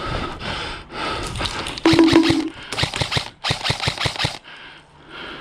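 Airsoft guns firing in rapid bursts of sharp clicking shots, several strings of fire back to back, dying away near the end.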